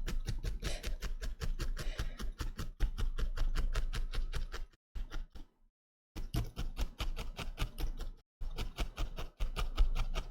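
Rapid, even tapping or clicking, several strokes a second, in runs that stop for about a second near the middle and briefly again later.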